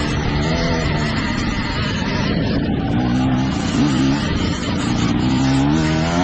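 Dirt bike engine running on the trail, its revs rising and falling as the throttle is worked, with the pitch climbing about three to four seconds in and again near the end.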